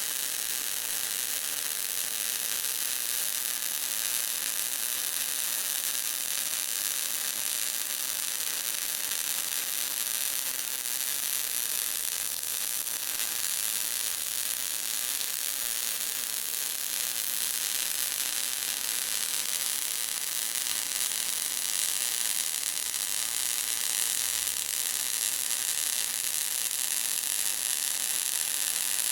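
Electric sparks crackling and sizzling in a continuous, steady high-pitched hiss, with a faint electrical hum underneath.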